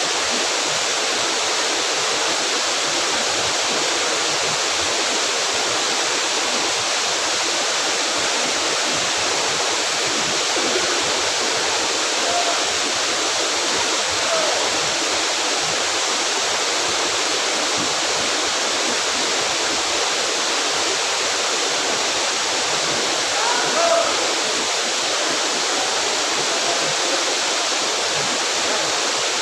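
Waterfall pouring, a steady loud rush of falling water that does not change.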